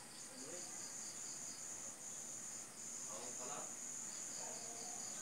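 Crickets chirring: a steady high trill with a few brief breaks, over a faster pulsing chirp a little lower. A faint distant voice-like sound comes in about three seconds in.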